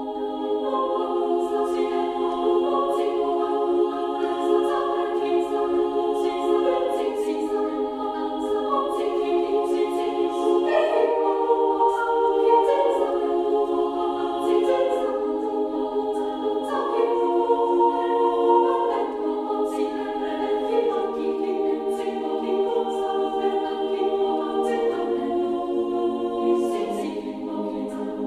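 AI-generated choral music: a choir singing long held chords that shift every few seconds, with almost no bass.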